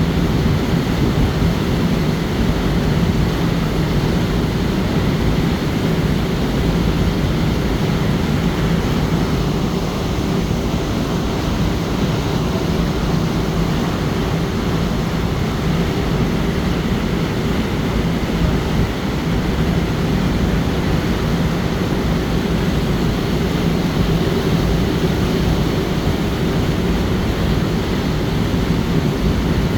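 A motor ship's engine running steadily under way, a constant low hum with the rush of water and air over it.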